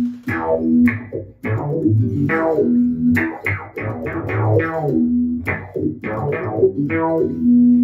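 Electric guitar played through a Digitech Dirty Robot synth pedal with no dry signal, a run of synth-voiced plucked notes. The pedal's envelope filter makes each note's brightness sweep downward after it is picked. It ends on a held note near the end.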